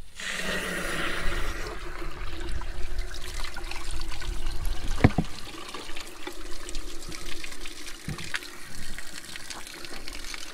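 Water from a hose rushing through a rusty tractor cylinder head and pouring out, starting abruptly as the flow is turned on: the head is being flushed of rust after an Evaporust soak. A single sharp knock about halfway through.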